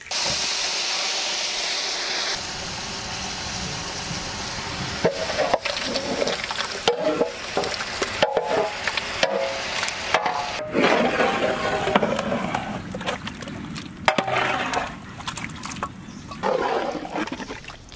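Chicken pieces in a creamy marinade are tipped into hot oil in a large metal cooking pot. They hiss loudly as they land and keep sizzling while a perforated steel ladle turns them, knocking and scraping against the pot.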